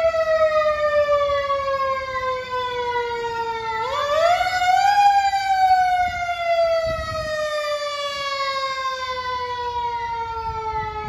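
Fire truck siren wailing close by: its tone sinks slowly, is wound sharply back up about four seconds in, then sinks slowly again. A fainter, higher warble runs quickly up and down underneath, over a low vehicle rumble.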